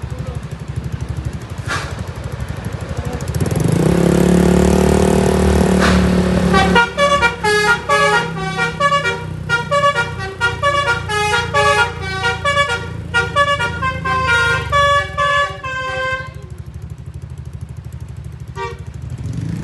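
A bus's basuri telolet horn plays a fast melody of short, rapidly changing notes for about nine seconds, over the engine's steady running. It is preceded by a loud, low sustained tone of about three seconds.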